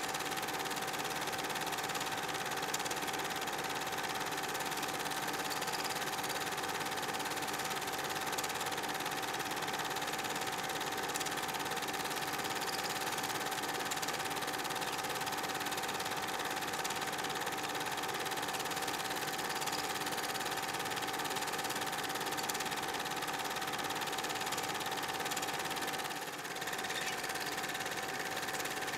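Steady mechanical running with a constant whine, typical of an 8mm cine projector's motor and film clatter picked up during transfer of the silent film. It dips briefly near the end.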